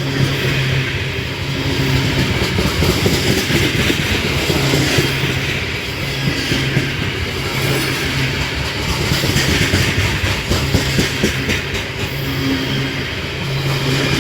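Heavy freight train rolling past, a steady rumble with the clatter of wheels over the rails.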